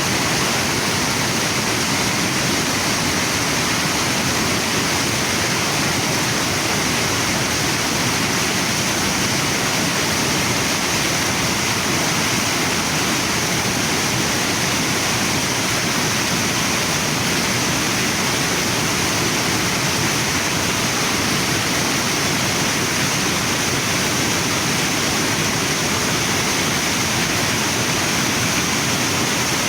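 Waterfall and river water rushing, a steady, unbroken roar of falling and flowing water.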